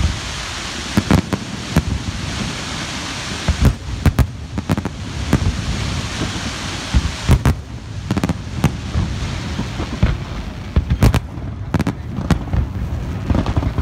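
Fireworks display: a dense crackling hiss for the first few seconds, then many sharp bangs of bursting shells coming thick and irregular, over a continuing crackle.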